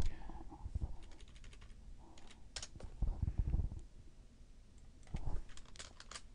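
Computer keyboard keys tapped in short scattered bursts of a few keystrokes at a time, with a dull low thump about three seconds in.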